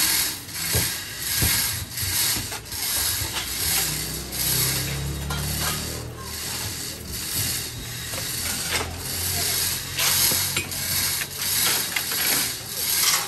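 Repeated rasping mechanical strokes, about one and a half a second, with a low hum underneath for a couple of seconds in the middle.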